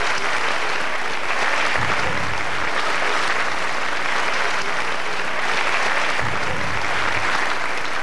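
A theatre audience applauding, a dense, steady clapping that carries on without a break.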